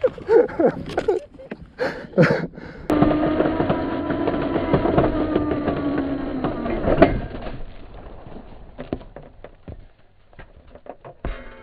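Whine of an electric dirt bike's rear hub motor driving a winch drum. It starts suddenly about three seconds in, runs steadily with its pitch sagging slightly, and fades out between seven and ten seconds. Before it, a person's short vocal sounds.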